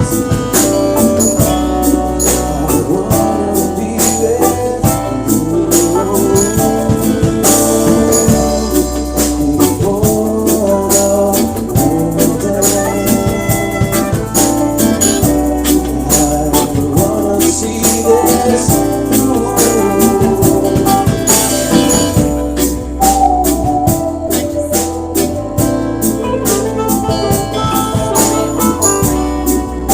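Live band playing a song: a bass line that changes note every second or so under held chords, with a steady, quick percussion beat.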